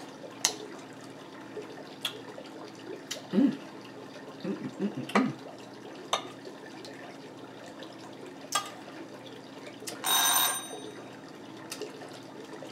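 Scattered clicks of a fork against a plate, then about ten seconds in a bell chimes once, for under a second: an alert she set for her lipstick test.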